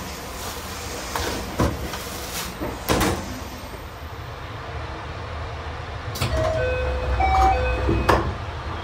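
A couple of sharp clicks from the stainless-steel trash-bin flap of a train vestibule being pushed. Near the end comes a low rumble with a run of short electronic chime notes as the carriage's sliding door stands open to the platform.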